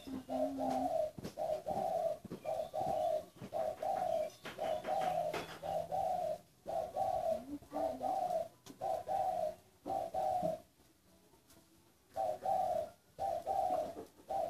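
Caged doves cooing: a regular series of short, mellow coos of one pitch, about two a second, that stop for a second and a half or so near the end and then start again.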